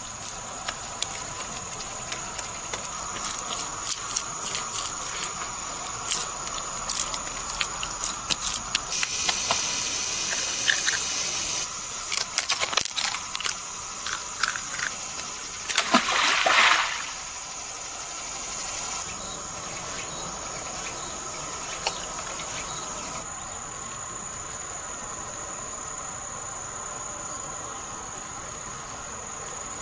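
Insects chirring in a steady, high-pitched drone, with scattered clicks and knocks during the first half and a brief louder rush about sixteen seconds in.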